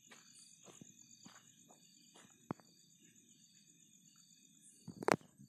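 Faint night insects, crickets, trilling steadily at a high pitch, with one higher band pulsing about once a second. A sharp click comes about halfway through and a louder knock near the end.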